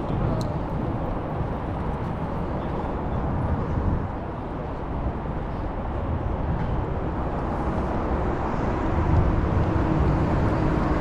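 Steady outdoor city ambience with a low rumble of passing traffic, growing a little louder near the end.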